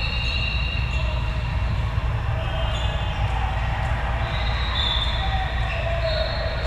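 Busy indoor volleyball gym: a steady low rumble with high squeaks coming and going across several courts, and faint ball thuds.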